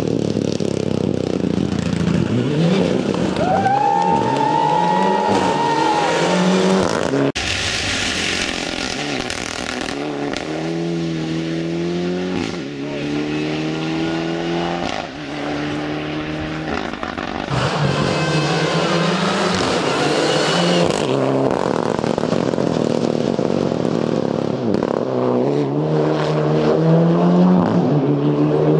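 Mitsubishi Lancer WRC rally car's turbocharged four-cylinder engine at full throttle, its pitch climbing and then dropping with each quick upshift as it accelerates through the gears. The sound jumps abruptly a few times where separate passes are cut together.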